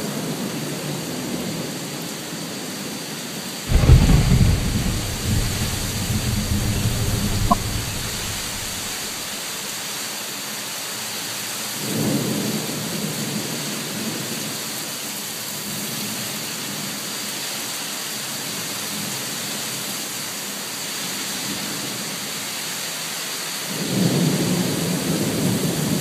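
Thunder over steady rain. A sudden loud clap about four seconds in rolls off over several seconds, a softer rumble follows near the middle, and another roll starts near the end.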